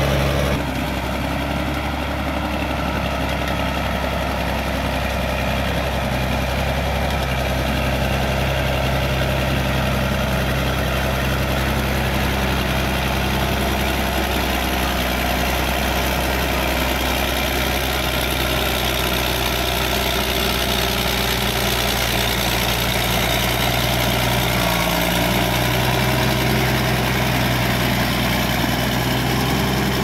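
Caterpillar D6D bulldozer's six-cylinder diesel engine running steadily as the dozer pushes wet clay, with a brief dip in the engine note late on.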